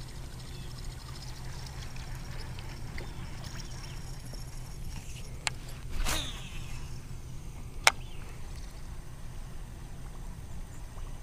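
Baitcasting reel being cranked steadily while a buzzbait is retrieved, a low continuous whirring hum. A few sharp clicks and a short louder burst come about halfway through.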